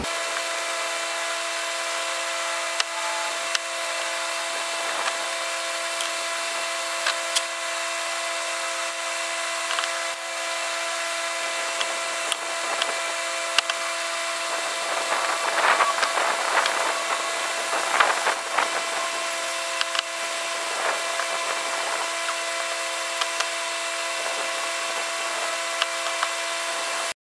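A steady hum of several tones over a hiss, with scattered small scrapes and crackles that are busiest around the middle. The crackles come from the hot tip of a soldering-iron-type plastic welder smearing molten HDPE zip-tie plastic through aluminum window screen on a polyethylene canoe hull. The sound cuts off abruptly just before the end.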